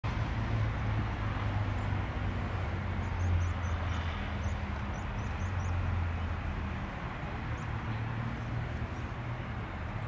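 Steady low drone of distant engines over a wide rushing noise, the hum swelling and fading in stretches, with a quick run of faint high chirps a few seconds in.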